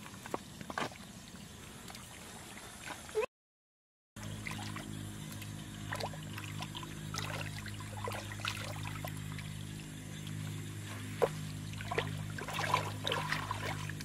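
Sloshing and splashing in shallow muddy water as a person wades and then gropes with both hands through the mud, the splashes coming thickest near the end. The sound drops out for about a second just after three seconds in, and from then a steady low hum runs underneath.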